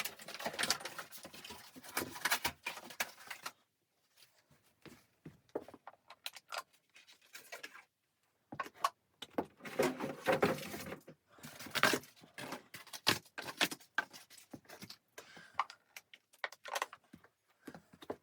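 Close-up rustling and clattering of things being handled, in bursts of quick clicks and scrapes with short pauses between.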